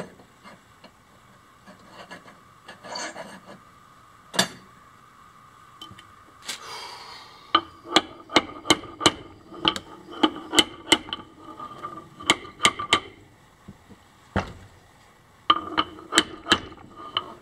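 Runs of quick hammer blows on the metal housing of an old electric motor, two to three a second, each with a short ring, knocking at a stuck housing piece to work it loose. Lighter handling clicks and knocks come first, and a pause falls before the last run.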